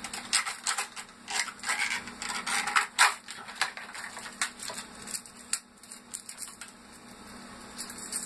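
Stiff clear plastic blister pack crackling and popping as it is pried off its cardboard backing to free a fishing lure. The sharpest crack comes about three seconds in, and it thins to a few faint ticks near the end.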